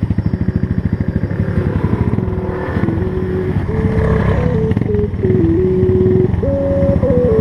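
Enduro motorcycle engine idling with an even, quick low thumping. From about two seconds in, music with steady stepping notes comes in over it and grows louder.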